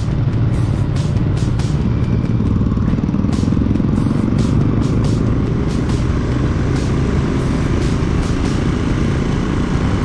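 Benelli motorcycle engine running steadily as the bike cruises along the road, with wind noise over the microphone.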